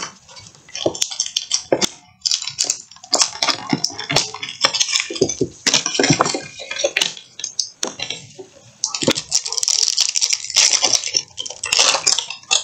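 Cardboard-and-plastic blister packaging of Pokémon booster packs being torn open, and a foil booster pack wrapper handled, crinkling and crackling in irregular bursts of rustling.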